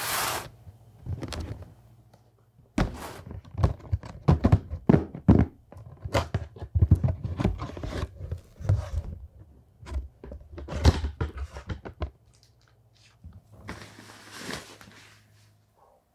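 A cardboard camera box being handled and unpacked by hand: a thunk as the box is set down on a wooden table, then a run of knocks, slides and scrapes of cardboard as the inner box is drawn out of its sleeve and opened, and a longer rustle near the end.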